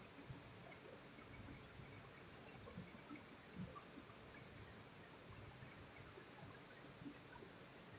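Near silence: a faint open-air background with soft irregular footfalls on stone steps and a faint high chirp repeating about once a second.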